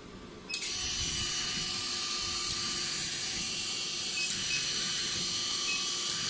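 A vacuum roller body-shaping machine switching on about half a second in, then running: a steady hiss of air with a high motor whine from its vacuum pump and turning rollers, and a few faint ticks.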